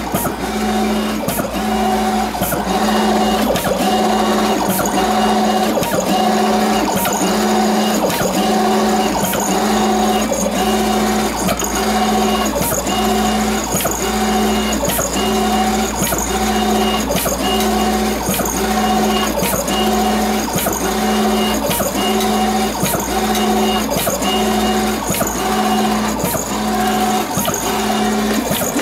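Wide-format inkjet marker plotter running, its print-head carriage motor whining in even repeated strokes, roughly one a second, with sharp clicks between them as it prints lines across the paper.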